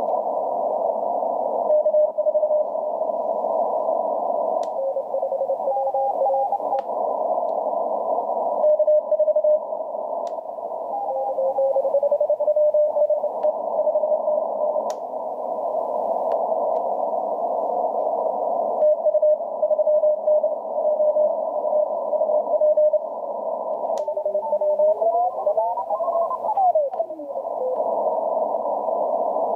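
Morse code (CW) signals on the 30-metre amateur band through a ham radio receiver's narrow CW filter, over steady band hiss: several stations keying at slightly different pitches, the 3D2EU DXpedition and callers in its pileup. Near the end the tones slide up and then back down in pitch as the receiver is tuned across them, with a few faint clicks of static.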